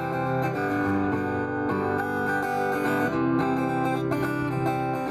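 Acoustic guitar strumming a song, instrumental with no voice.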